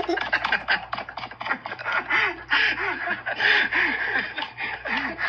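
A dog vocalizing in a quick run of short whines that each rise and fall in pitch, over a clicky, crackly background.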